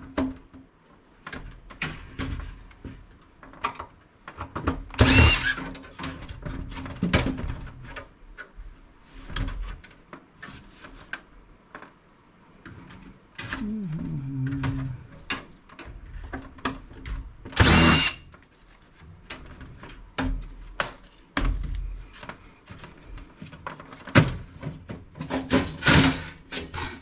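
Irregular clicks, knocks and clatter of a computer case's plastic and steel panels being handled and pried apart, with two louder, half-second bursts of rattling about 5 and 18 seconds in.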